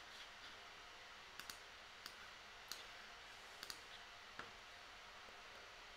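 Faint computer mouse clicks, about seven scattered over a few seconds, some in quick pairs, over near-silent room tone.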